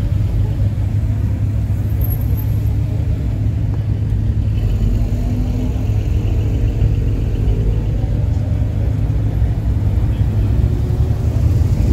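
A queue of cars, Porsche sports cars among them, rolling slowly past at low speed with their engines idling: a steady low rumble.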